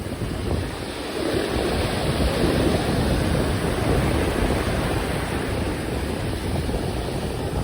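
Ocean waves breaking and washing up on a sandy beach, swelling louder from about a second in, with wind buffeting the microphone as a low rumble.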